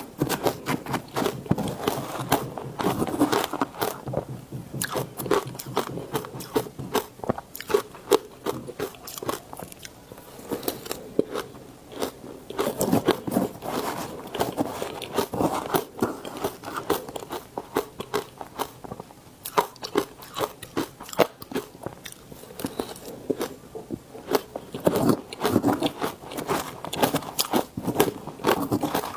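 A person biting and chewing ice: a steady stream of sharp crunches and cracks, coming in three denser spells of chewing.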